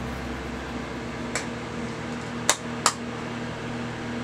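Three sharp little clicks of a makeup brush and plastic bronzer compact being handled, the last two close together and loudest, over a steady room hum.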